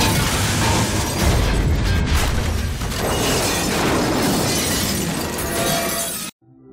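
Car-crash sound effects: a police cruiser smashing into a parked car and rolling onto its side, with crunching metal and shattering glass over music. The crash cuts off suddenly near the end, and faint ambient music follows.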